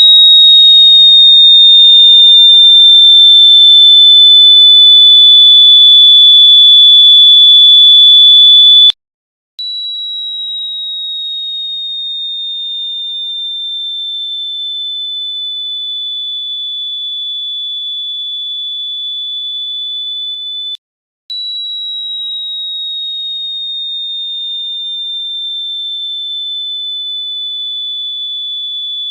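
A shrill, piercing electronic tone around 4 kHz, sinking slightly in pitch over each stretch, played as an annoying prank sound. It is very loud for about the first nine seconds, then breaks off briefly and returns much quieter, with another short break about 21 seconds in.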